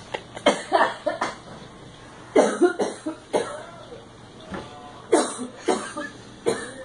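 A person laughing in short bursts, several times over with brief pauses between.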